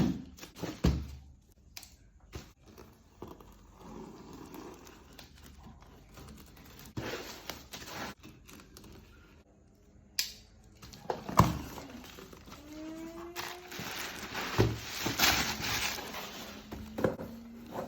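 Packaging of a Kinu M47 Simplicity hand coffee grinder being handled and opened: irregular rustling and crinkling with sharp clicks and knocks, busier and louder in the second half.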